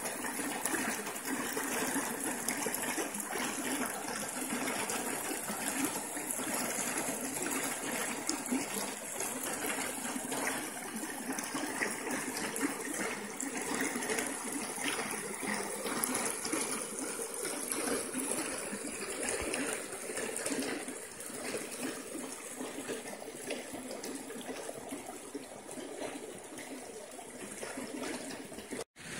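Shallow creek water rushing and splashing over a riffle of fallen logs, a steady rushing noise that eases a little later on. Near the end it breaks off for an instant.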